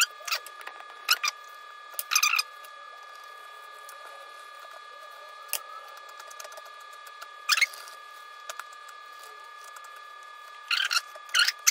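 Fillet knife cutting through a large grouper's skin and flesh on a wooden board: short raspy scraping strokes in a cluster at the start, singly about two and seven seconds in, and again in a cluster near the end. A faint steady hum runs underneath.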